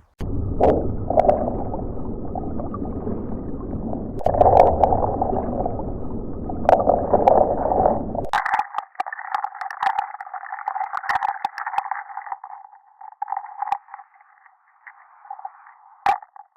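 Bubbling, gurgling water sound effect. About eight seconds in it changes abruptly to a thinner, higher bubbling that grows patchy and fades, with scattered small clicks.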